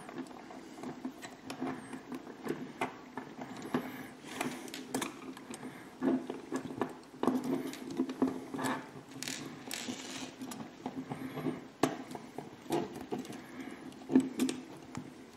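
A small screw being driven by hand with a precision screwdriver into a plastic model car suspension mount, with scattered small clicks, taps and scrapes of the plastic parts being handled.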